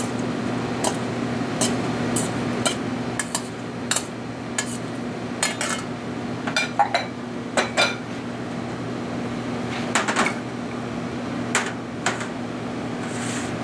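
Metal tongs clinking and scraping against a stainless steel mixing bowl as salad greens are tossed, in irregular clicks and clanks, over a steady low hum.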